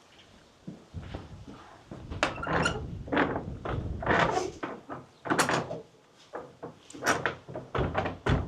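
A church door being tried: a series of clunks and rattles from its latch and handle as it is turned and pushed, the door staying shut because it is locked.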